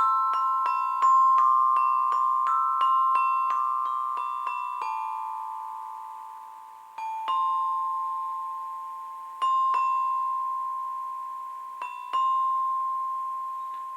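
Tuned mallet percussion playing high ringing notes, each note sustaining long after it is struck. A quick run of strikes fills the first five seconds, followed by a few sparse strikes.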